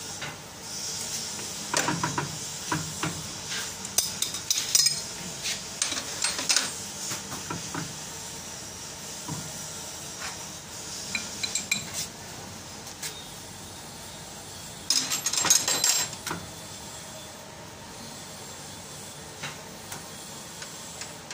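Irregular metallic clinks and clatter of steel tools and fittings being handled at a diesel injection-pump test bench, coming in bursts with the loudest about three-quarters of the way through, over a steady hiss.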